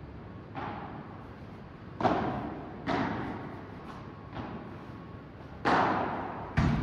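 Padel rally: six sharp pops of the ball off the rackets, the court and the glass walls, a second or so apart. Each hit rings briefly in the echoing indoor hall, and the loudest come in the middle and near the end.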